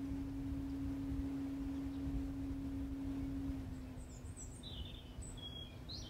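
Mitsubishi Electric air source heat pump outdoor unit running: a steady low hum over a low rumble, easing slightly a little past halfway. A few faint bird chirps near the end.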